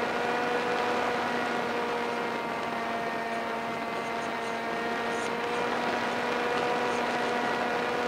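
Easystar RC plane's electric motor and pusher propeller running at a steady throttle: an even whine over the rush of air past a microphone mounted under the wing.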